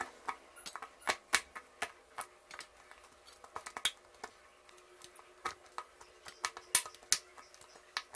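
A metal fork stabbing into raw chicken pieces, its tines clicking irregularly against a stainless steel plate.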